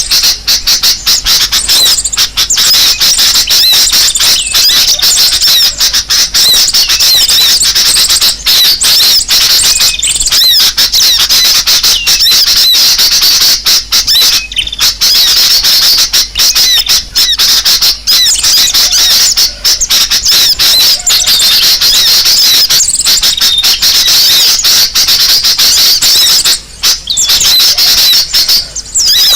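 A loud, dense chorus of many small birds chattering and squeaking in fast high-pitched calls without a break: a bird-lure recording of agitated, noisy birds, used to draw other birds in.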